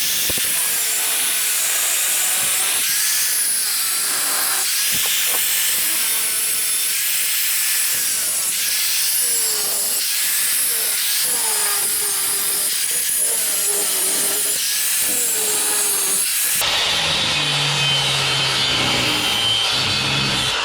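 A power tool cutting metal during scrap teardown: a loud, steady hiss with a whine that wavers up and down in pitch over and over. The sound changes abruptly about sixteen seconds in, when a lower hum comes in.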